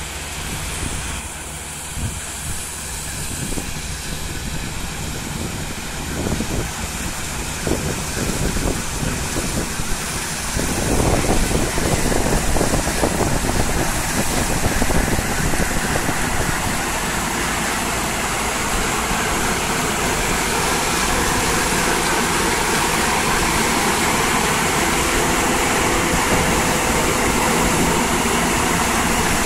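Claas Tucano 440 combine harvester running while harvesting, its engine and threshing machinery droning. The sound grows louder as the machine comes close, then holds at a steady loud level from about a third of the way in.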